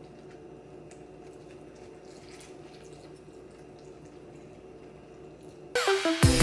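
Milk poured in a thin stream from a plastic gallon jug into a glass bowl of cereal: faint trickling over a low steady hum. Loud electronic music cuts in suddenly near the end.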